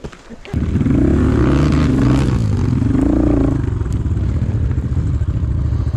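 Enduro motorcycle engine starting up about half a second in, then revved twice, its pitch rising and falling each time, before settling to a steady idle.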